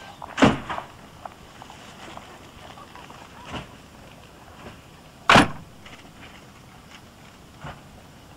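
Slam doors on a slam-door suburban electric train being banged shut at a stop: two loud bangs about five seconds apart, with a few lighter knocks in between.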